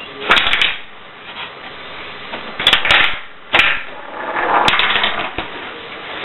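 Marbles clattering and clicking through the rockers of a binary marble adding machine, in several irregular bursts of sharp clicks and rattles.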